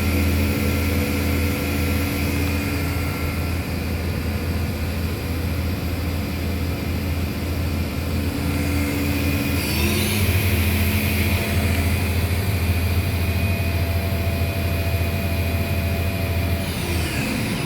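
Gildemeister CTX 600 CNC lathe running, with a steady hum from its spindle drive. The pitch glides up about halfway through as the spindle changes speed, and shifts again near the end.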